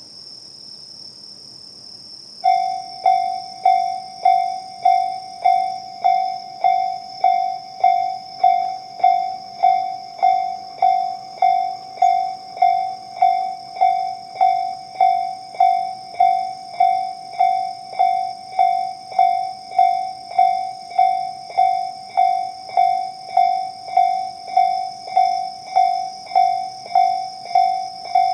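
Japanese railway level-crossing warning bell, the electronic slow-tempo Tobu 'sound C' type, starting up about two and a half seconds in. It then strikes steadily at about one and a half rings a second, each ring a clear tone that dies away quickly. A steady high-pitched drone runs underneath.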